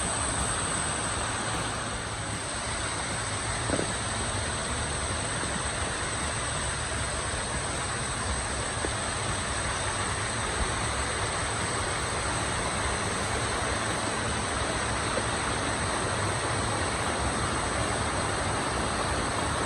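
Waterfall water rushing steadily, with a steady high-pitched tone above it and a few faint clicks.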